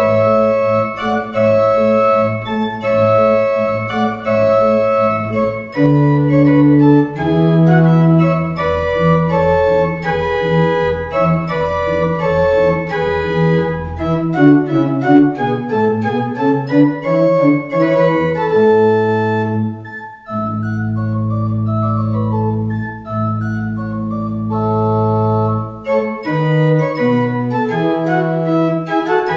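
Pipe organ playing, with chords over held bass notes and a melody moving above them, and a short dip about twenty seconds in.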